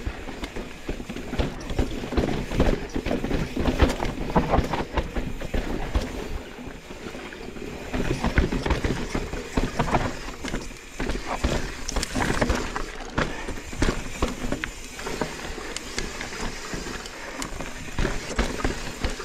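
Mountain bike riding down a rocky technical trail: tyres rolling over rock with a constant, uneven run of knocks and rattles from the bike.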